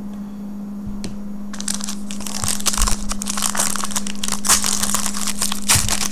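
Foil trading-card pack wrapper being handled and crinkled by hand. The dense crackling starts about a second and a half in and goes on irregularly.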